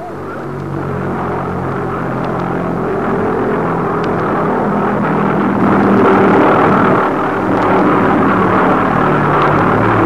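V1 flying bomb's Argus As 109-014 pulsejet engine giving its pulsating drone, growing steadily louder as it approaches.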